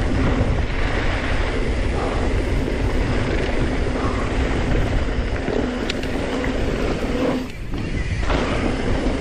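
Wind buffeting the microphone over the rattle and rolling of mountain bike tyres on a fast descent down a dry dirt trail. The noise is steady, with a brief drop about seven and a half seconds in.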